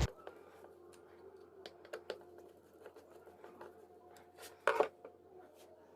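Faint scattered clicks and rustles of hands and tools working on a circuit board, with a louder scraping rub about four and a half seconds in.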